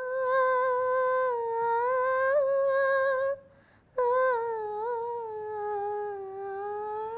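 Wordless humming of a slow melody in a high voice, in two long held phrases with a short pause about halfway through.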